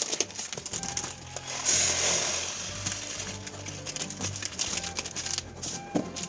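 Background music with steady low held notes. Scattered clicks and knocks sound over it, and a short rush of hissing noise comes in about two seconds in.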